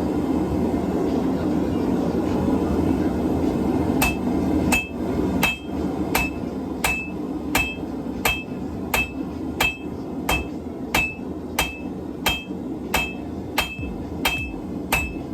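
Hand hammer striking hot steel on an anvil in a steady forging rhythm, about one blow every 0.7 seconds, starting about four seconds in. Each blow rings with a short high note, over a steady rushing noise.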